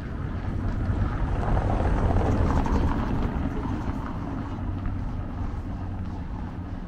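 A motor vehicle passing on the street, its engine and tyre noise growing louder to a peak about two to three seconds in, then fading away.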